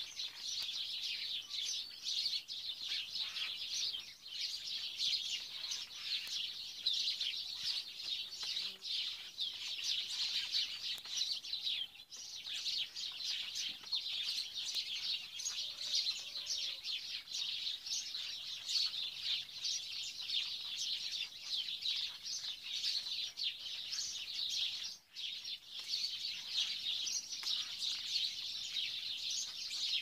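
Many small birds chirping at once, a dense steady chatter of short high chirps that dips briefly twice, about twelve and twenty-five seconds in.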